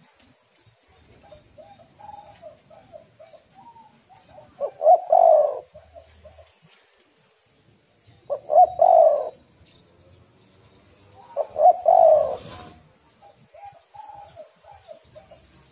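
Spotted dove cooing: three loud, deep coo phrases a few seconds apart, with softer strings of short coo notes between them. The uploader presents it as a female in breeding condition.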